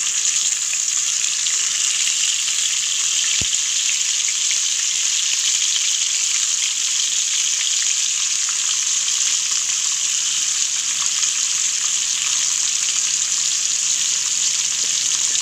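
Tomato slices frying in hot oil in a pan: a steady high sizzle.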